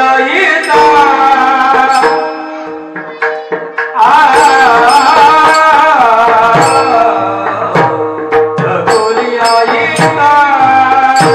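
A man singing a long, wavering devotional kirtan melody over a steady drone, accompanied by mridang (pakhawaj) strokes; in the second half the drum adds low, bending bass strokes.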